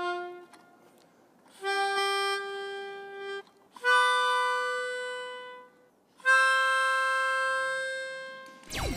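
Melodica played with its blow tube: three long held notes, each slowly fading, with short pauses between them, the second and third higher than the first, after the tail of an earlier note dies away in the first half-second.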